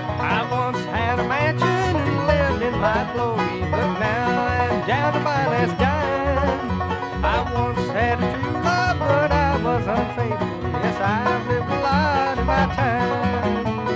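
Bluegrass band playing an instrumental passage with no singing: a banjo over guitar and bass, at a steady driving beat.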